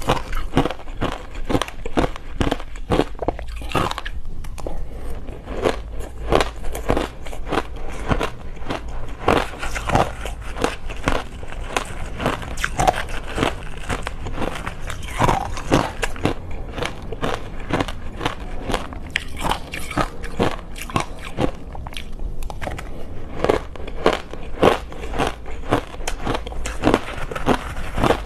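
Someone chewing and crunching a mouthful of shaved ice topped with passion fruit pulp: a continuous run of crisp, crackling crunches, several a second, over a steady low hum.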